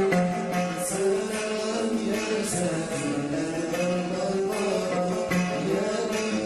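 Traditional Yemeni song: a male voice sings long, gliding held notes over a plucked string accompaniment.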